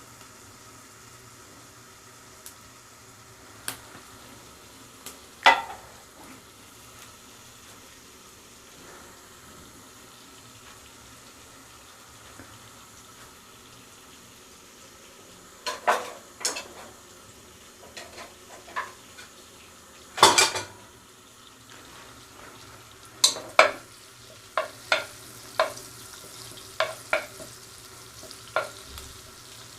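A spoon stirring melting butter and ghee in a hot pot, clinking and knocking against the pot over a faint steady sizzle. The clinks come singly at first, with the loudest clatter about twenty seconds in and a run of quick taps near the end.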